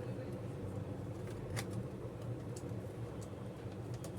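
A few light clicks and taps of small laptop parts being handled and fitted during reassembly, over a steady low hum.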